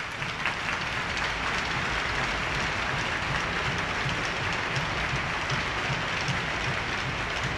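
Arena crowd applauding steadily, a dense even patter of many hands clapping.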